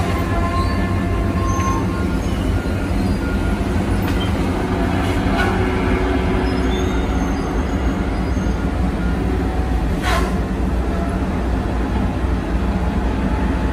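Diesel engine of a heavy logging machine running steadily, heard from inside its cab, with a continuous metallic rattle and a sharp clank about ten seconds in.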